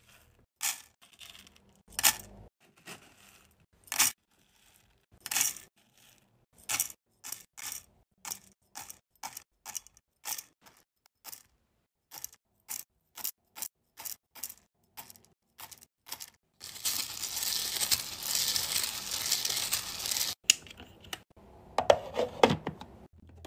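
Wax beads clicking against a metal scoop and being poured into the metal pot of a wax warmer. Sharp rattling clicks come spaced out at first, then more quickly, then a few seconds of continuous rattling as a scoopful pours in, and a few louder knocks near the end.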